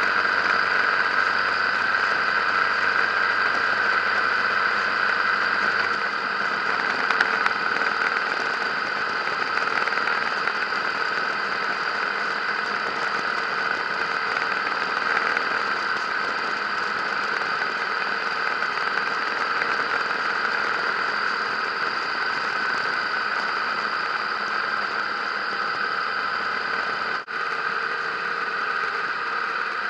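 Harley-Davidson motorcycle riding at road speed, heard from an action camera mounted on the bike: a steady mix of engine and wind noise. The sound drops out for a moment near the end.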